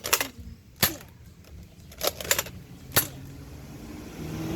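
Toy Nerf foam-dart blaster firing, about five sharp spring-plunger pops, two of them in quick succession.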